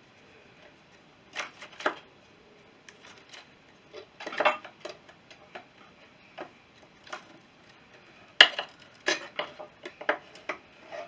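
Irregular metallic clinks and knocks as a Honda CB350's cylinder head is wriggled and turned to get it out of the frame, the sharpest knock about eight seconds in.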